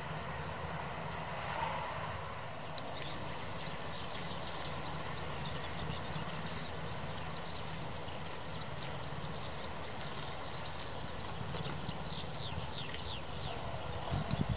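JMSDF SH-60K Seahawk twin-turboshaft helicopter running with its rotors turning, a steady low rotor thrum, as it lifts into a hover near the end. Many short, high, falling chirps from birds or insects sound over it from a few seconds in.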